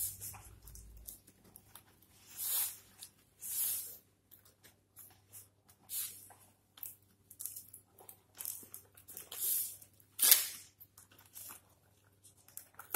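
Split bamboo ties and dong-leaf wrapping rasping and crackling as a bánh chưng is tied by hand: short scratchy rustles at irregular intervals, with a louder one about ten seconds in.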